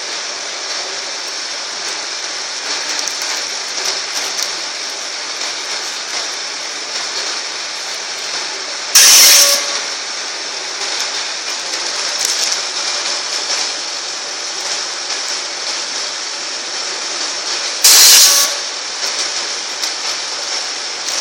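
Continuous band sealer running steadily with a constant mechanical hiss as pouches are fed through it. Two short, loud hissing bursts come about nine seconds apart, one near the middle and one near the end.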